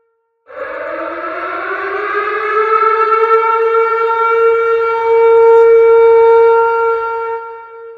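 Tornado warning siren starting about half a second in, winding up in pitch over a couple of seconds, then holding a steady wail before dying away near the end.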